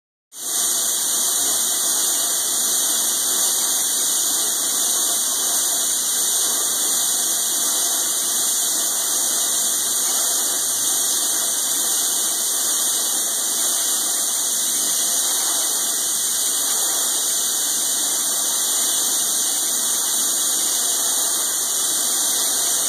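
Steady machine-shop noise: an unbroken high hiss and whine with no knocks or breaks.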